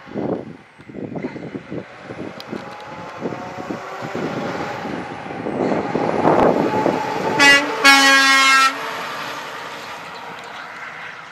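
International LT Series semi tractor, running without a trailer, driving past. Its engine and road noise build to a peak, and wind gusts hit the microphone in the first few seconds. About three quarters of the way in the truck sounds its horn, a short toot then a longer blast of about a second, and then fades away.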